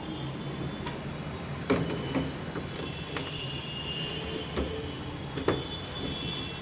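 Five or so sharp clicks and knocks, as from objects being handled and set down on a workbench, over a steady low hum.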